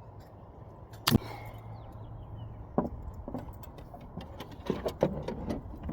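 Vehicle engine running with a steady low hum, with one sharp click about a second in and several lighter clicks and knocks later on.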